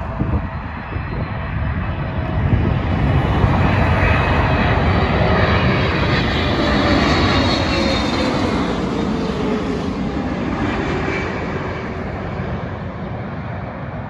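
Pakistan International Airlines Boeing 777-300ER on approach passing low overhead, its two GE90-115B turbofans building to a loud rumble with a high whine. As it goes over, the engine tone slides down in pitch and the noise slowly fades away.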